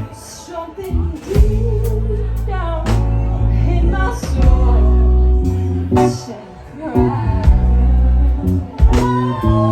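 Live band playing a slow soul-blues ballad: a sung vocal line over bass, drums, guitar and keyboard, with regular drum hits.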